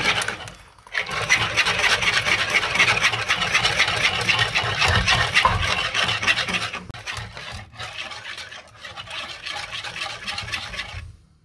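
Wire whisk beating melted butter into egg yolks and egg in a bowl: fast, steady scraping and ticking of the wires against the bowl. It pauses briefly about half a second in, goes quieter after about seven seconds and stops just before the end.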